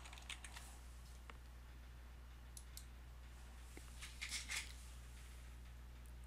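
A few faint, scattered clicks of a computer keyboard and mouse as the last keys are typed and a mouse button is pressed, with a small cluster of clicks about four seconds in, over a low steady hum.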